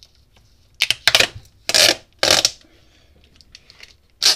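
Handling noise from blue plastic-wrapped LiFePO4 battery cell packs being pulled apart and moved on a workbench: about five short scraping, crinkling rubs of the wrap, the longest near the middle and one more near the end.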